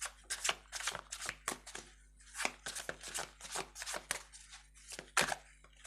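A tarot deck being shuffled by hand: a quick, irregular run of short papery slaps and swishes as the cards are handled.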